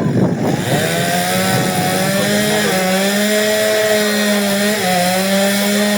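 Chainsaw engine revving up and then running steadily at high speed, its pitch dipping slightly a couple of times.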